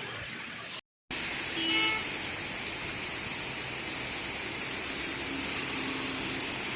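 Heavy rain pouring steadily, with a short beeping tone about a second and a half in.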